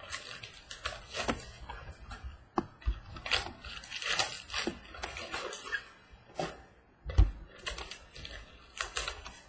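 Trading cards being handled and flipped through by hand: irregular sliding, scraping and clicking of card stock, with a dull thump on the table about seven seconds in.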